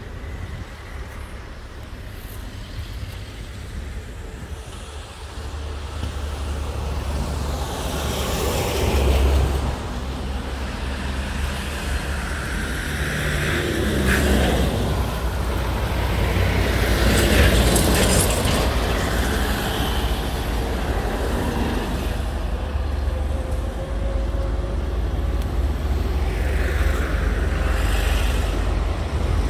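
Road traffic and heavy vehicle engines over a steady low rumble. Several vehicles swell in and fade away, and the loudest comes about seventeen seconds in.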